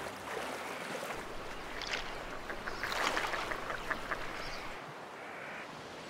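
Water splashing and rippling as Chinese mergansers swim and chase on a river, with a few short duck calls; busiest about halfway through.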